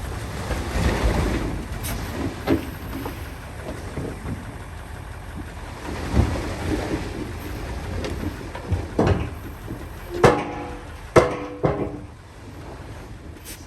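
Heavy earthmoving machinery at work: a diesel engine running with a low rumble, loose thuds and scraping of dirt, and a few sharp metallic clanks with a short ringing tone about ten to twelve seconds in.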